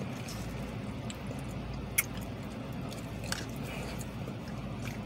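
A man chewing a mouthful of red beans, with a few light clicks, over a steady low hum inside a parked car. The sharpest click comes about two seconds in.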